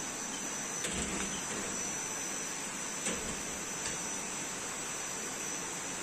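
Steady background hiss with a thin, high-pitched whine running through it, and two soft knocks, about a second in and about three seconds in.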